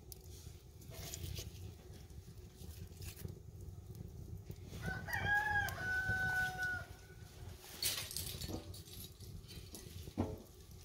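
A rooster crows once about five seconds in, a call of about two seconds, over a low steady rumble.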